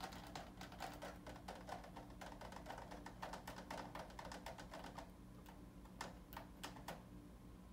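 Faint rapid clicking, several clicks a second, thinning to a few separate clicks after about five seconds.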